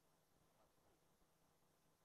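Near silence: faint hiss with a low steady hum.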